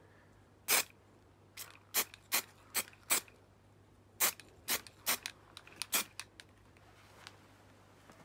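Aerosol can of etch primer sprayed onto bare welded sheet metal in about a dozen short, quick hissing bursts, each a fraction of a second, over the first six seconds.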